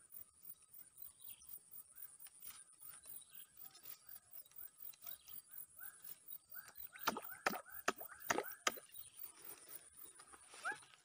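Faint chirping calls of small swamp animals, repeated several times a second over a steady high ticking. A little after the middle come about five sharp clicks in quick succession.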